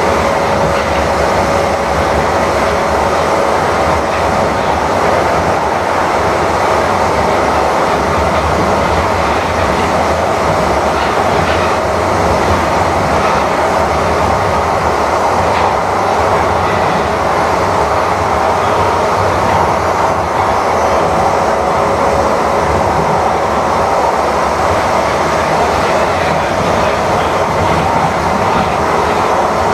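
Interior of a Calgary C-Train Siemens U2 light rail car running along the line: a steady rumble of wheels on rail. A thin steady whine is heard at the start, fades, and returns in the last third.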